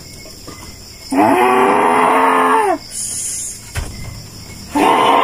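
Two long, drawn-out moaning wails from a woman, each about a second and a half, rising at the start, held, then falling away, with a short pause between them.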